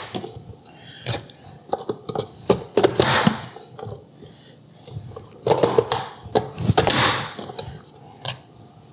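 Fullstar plastic vegetable chopper dicing potatoes: the lid is pressed down to force potato through the dicing blades, giving crunching cuts and plastic clacks. There are several separate strokes, the loudest about three seconds in and again between five and a half and seven seconds.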